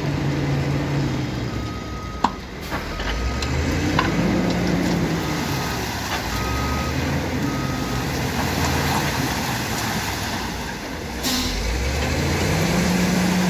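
Diesel engine of a semi-trailer tipper truck revving up and down while its bed is raised to dump a load of soil. A series of about six high beeps, like a reversing alarm, sounds in the first half, and a short hiss comes about eleven seconds in.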